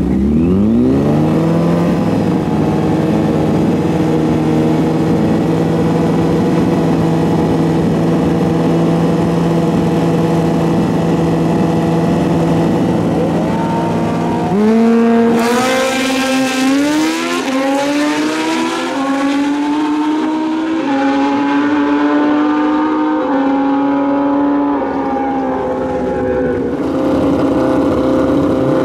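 Drag-racing motorcycle engine revved up and held at steady revs on the start line, then launching about halfway through and accelerating hard through several gear shifts, the pitch climbing and stepping with each shift as it fades away down the track. Near the end another bike's engine runs steadily.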